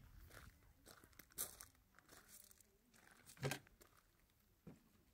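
Footsteps crunching on gravel at a walking pace, with one louder knock about three and a half seconds in as the wooden garden gate is reached.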